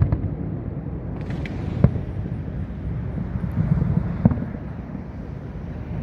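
Fireworks going off: two single sharp bangs, about two seconds in and again past four seconds, with a faint crackle near the start, over a steady low rumble.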